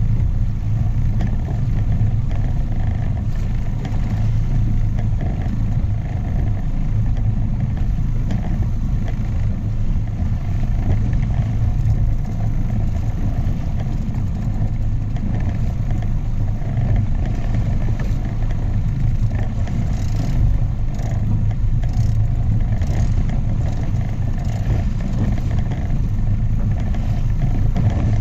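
Outboard motor running steadily, a constant low hum, with wind and water rushing past an inflatable boat underway. A few short knocks come near the end.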